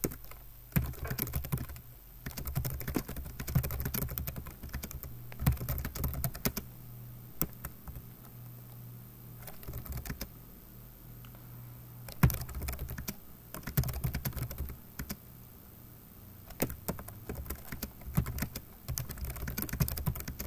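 Typing on a computer keyboard: quick runs of key clicks with short breaks, and a lull of a few seconds about halfway through.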